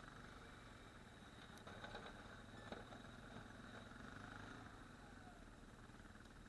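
ATV engine idling faintly and steadily, with a couple of light clicks.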